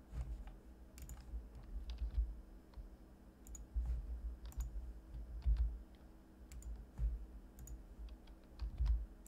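Irregular clicks of a computer mouse and keyboard keys at a desk, a few a second, with low thumps underneath.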